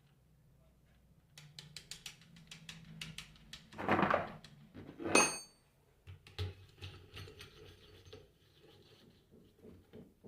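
Hand tools working on an alternator being bolted back together: runs of rapid clicking, like a ratchet tightening nuts, with two loud metal knocks, the second ringing like a steel tool set down about five seconds in.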